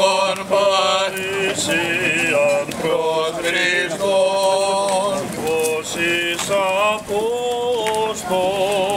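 Greek Orthodox Byzantine chant sung by male voices: a slow, melismatic line of held notes that waver and turn from one pitch to the next.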